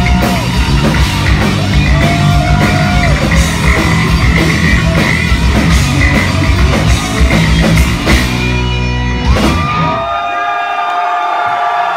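Live heavy metal band playing: lead electric guitar soloing over drums and bass. About nine and a half seconds in, the drums and bass stop and a single held guitar note rings on, bending slightly in pitch.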